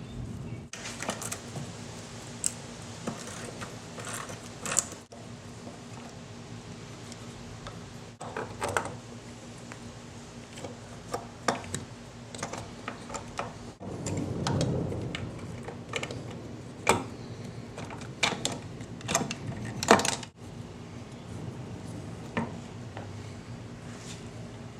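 Wrench and small metal parts clicking and clinking as nuts are taken off and the carburetor is worked loose from a Mercury 110 outboard motor, with a few sharper knocks and a short stretch of rustling handling in the middle, over a steady low hum.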